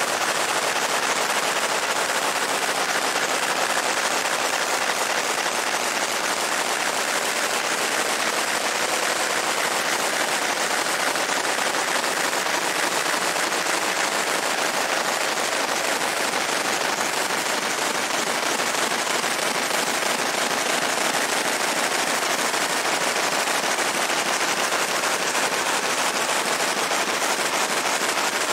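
Fiber laser engraving a steel Glock 19 pistol slide: a steady, very rapid crackle as the pulsed beam marks the metal.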